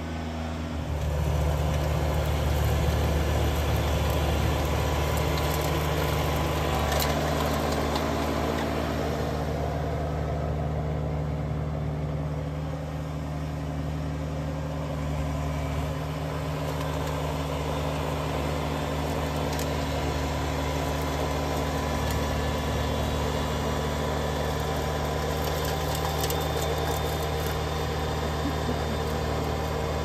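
Kubota BX2380 compact tractor's three-cylinder diesel engine running steadily, louder over the first several seconds and then holding an even, lower level.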